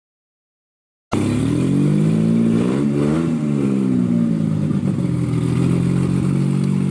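A car engine cuts in suddenly about a second in, revs up and back down once, then runs at a steady idle.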